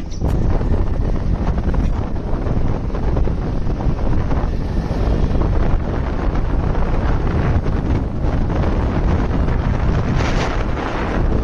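Wind buffeting the microphone of a moving motorcycle: a steady, loud rushing rumble, heaviest in the low end.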